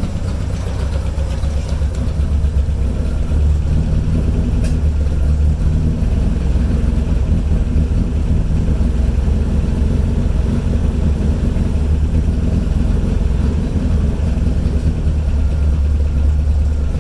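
Toyota Celica's four-cylinder engine idling steadily on dual Weber 45 DCOE sidedraft carburettors, a little louder from about three seconds in. Both carbs draw air past their unsealed throttle shaft ends, a vacuum leak that is normal for these carburettors.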